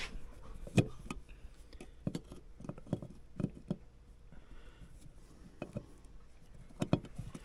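Snap ring pliers clicking and scraping against a steel snap ring on an aluminum brake housing: scattered, irregular small metal clicks as the pliers work the ring out of its groove against spring pressure.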